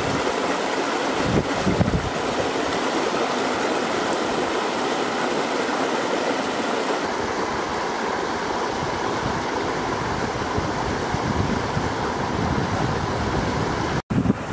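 Water of a shallow rocky stream rushing steadily over small cascades and rock ledges.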